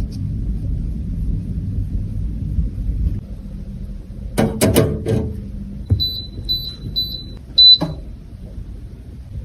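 Low rumble, then a quick cluster of clicks and clatter, followed by four short high-pitched beeps about half a second apart, the last one the loudest.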